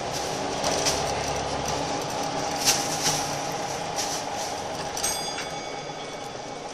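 Inside a Scania L94UB Wright Solar single-deck bus on the move: diesel engine and road noise with knocks and rattles from the body. The low engine hum falls away about two seconds in. About five seconds in there is a sharp click followed by a brief ringing tone.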